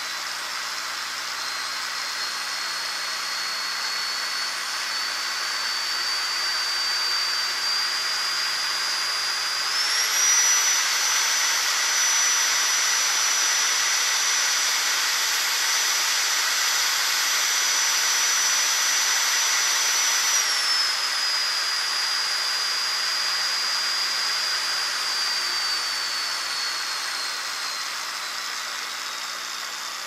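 Jet-engine sound effect: a high turbine whine over a rushing hiss. The whine creeps up in pitch, jumps higher about ten seconds in and holds there, louder, then drops back about twenty seconds in and slowly winds down in pitch.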